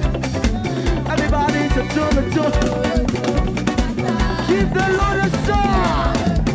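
Live praise-band music, with drum kit and bass keeping a steady beat under a melody line that slides in pitch.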